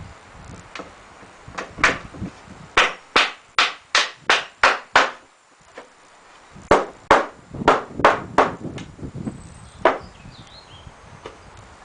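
Hammer driving nails into pallet-wood boards: a run of quick blows at about two to three a second, a short pause, a second run, then one last blow near the end.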